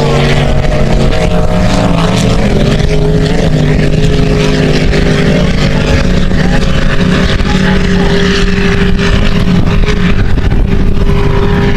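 Motorboat engine running at a steady pitch, over a constant low rumble.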